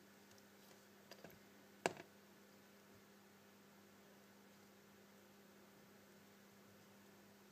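Near silence: a steady low electrical hum, with a few faint clicks about a second in and one sharper click just before two seconds in.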